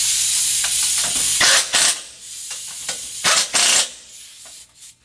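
Pneumatic air ratchet on a shop air hose: a steady hiss of air for the first second or so, then two short bursts of the ratchet running as it runs down the bolts holding the ball joint plate in the jig.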